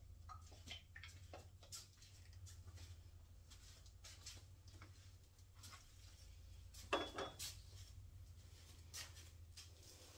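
Faint room tone with a steady low hum, broken by scattered light clicks and small clattering knocks of objects being handled, the loudest pair about seven seconds in.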